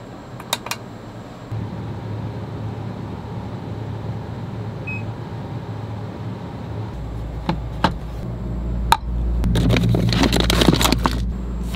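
A steady low hum with a few sharp clicks, deepening about seven seconds in. Near the end, green coffee beans clatter and rattle as they are tipped out of a glass jar.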